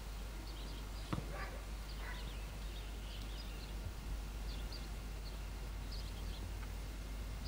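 Small birds chirping on and off in short high calls over a steady low rumble of outdoor ambience, with one sharper call about a second in.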